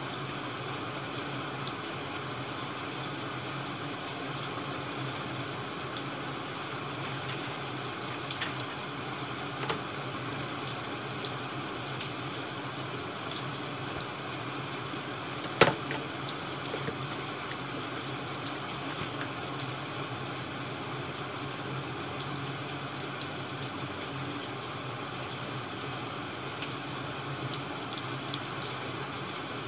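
Steady hiss of a rain ambience track with faint scattered crackles, and one sharp click about halfway through.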